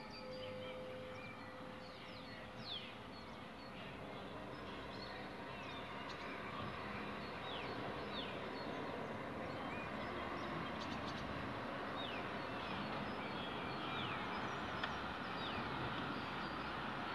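Outdoor evening ambience: a church bell's last note fading out in the first two seconds, then birds giving short falling chirps every second or so over a steady rumbling noise that slowly grows louder.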